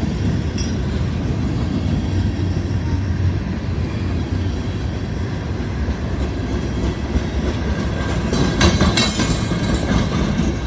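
Freight cars of a CSX train rolling past: a steady rumble and clatter of steel wheels on rail, with brief metallic screeches from the wheels near the end.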